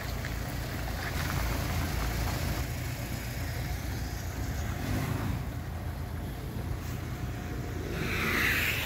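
Cars running at low speed on an iced-over street: a steady low engine rumble, with a hiss that swells near the end.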